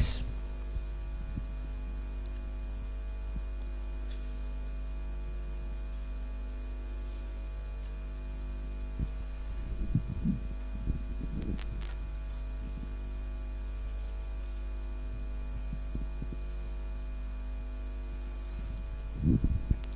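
Steady low electrical hum, with a few faint brief sounds about halfway through.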